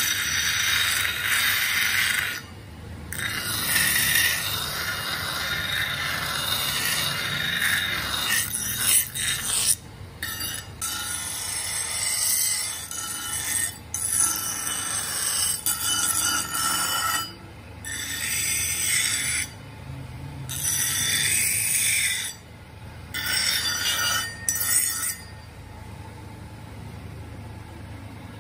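Electric bench grinder's abrasive wheel grinding a steel axe head: a harsh, high-pitched grinding hiss in stretches of a few seconds, broken by short pauses as the piece is lifted off the wheel. The grinder motor's low hum runs underneath and is heard alone for the last few seconds.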